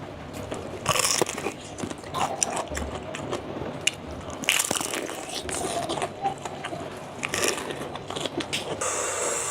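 A person biting and chewing food, with irregular sharp clicks and crackles of bites throughout.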